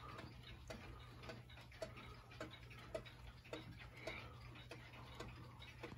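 Battery-powered electromechanical wall clock movement ticking steadily, with short faint clicks a little under two a second.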